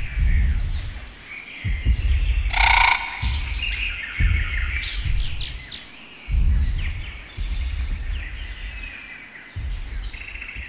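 Birdsong ambience of many small chirps, under which a deep low thud comes every second or so. A brief shrill screech cuts through about three seconds in.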